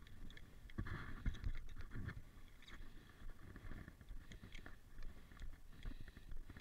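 Handling noise of a phone being put away: soft irregular rustling and knocks over a low rumble, busiest about one to two seconds in.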